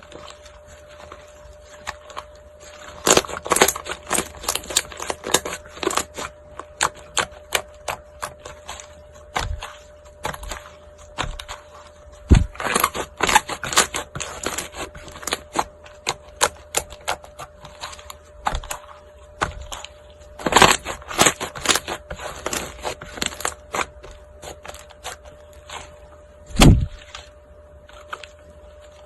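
Slime being pressed and squeezed by hand, crackling and popping in dense runs of small clicks that come in three clusters, with a few soft low thuds. A faint steady hum runs underneath.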